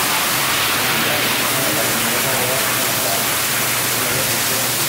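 Water jet from a pressure-washer wand spraying onto a soaked, soapy oriental rug: a steady hiss and splash, with a low hum underneath.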